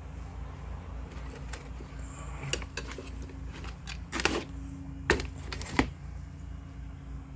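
A handful of sharp clicks and knocks, the loudest a brief clatter about four seconds in and two single knocks shortly after, over a steady low hum.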